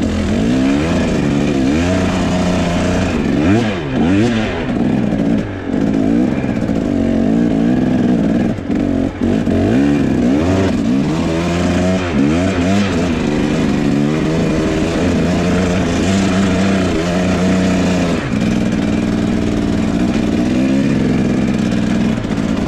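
Enduro dirt bike engine revving up and down over and over as the rider works the throttle, with the pitch climbing and dropping every second or two while the bike rides a snowy trail.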